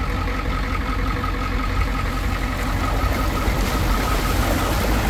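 Vehicle engine running steadily, with a low rumble.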